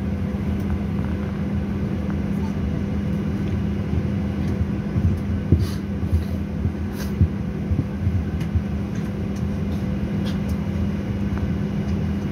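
Steady drone and low rumble inside the cabin of a Boeing 737-900 moving on the ground before take-off, with an even hum running under it. Faint passenger voices and a few short clicks come through around the middle.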